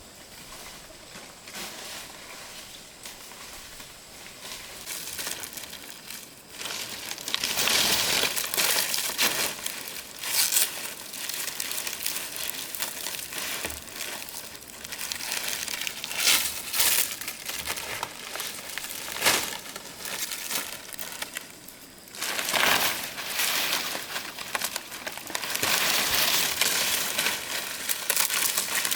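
Dry leaves crinkling and rustling as they are handled, in irregular bursts that grow louder about seven seconds in.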